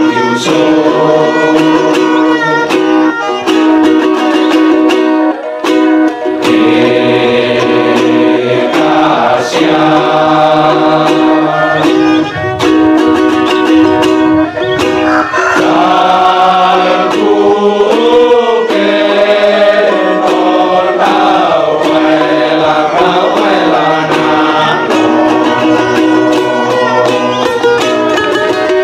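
Men's choir singing a hymn in harmony, accompanied by a small strummed string instrument.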